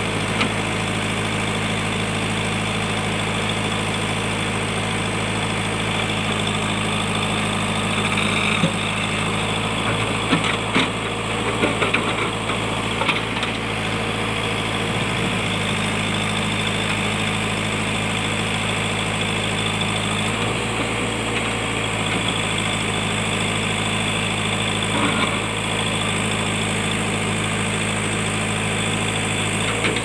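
JCB backhoe loader's diesel engine running steadily as the backhoe works, with a high hydraulic-sounding whine over it. A few short knocks and scrapes of the steel bucket against rock come through, mostly in the first half.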